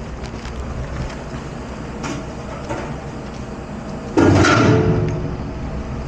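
Steady machine noise of a commercial dish area, with a loud metallic clatter about four seconds in that rings briefly and fades over about a second, like metal kitchenware or a dish rack being handled.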